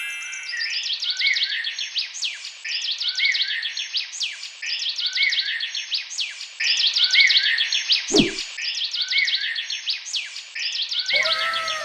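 Background track of birds chirping, the same short bright phrase repeating over and over at an even pace. There is a brief low thud a little after eight seconds and a few falling whistle-like tones near the end.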